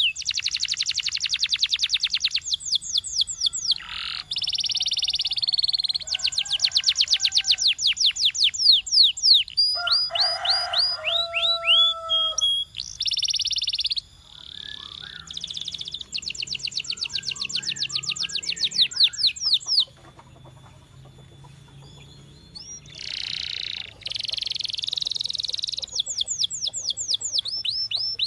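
Canary singing: phrase after phrase of fast trills and rapid repeated high notes, with a short quieter pause about two-thirds of the way through.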